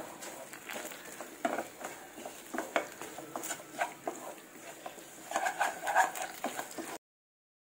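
Wooden spatula scraping and tapping against a nonstick frying pan while stirring a thick, sticky jaggery-and-coconut mixture that is still cooking down and not yet at the rolling stage. There is a quicker run of scrapes about five to six seconds in, and the sound cuts off abruptly about seven seconds in.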